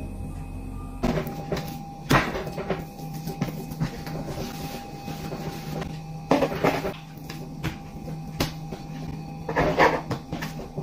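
Kitchen knife knocking against a wooden cutting board as bread dough is cut into portions, with a few separate knocks and clusters of thuds over a faint steady hum.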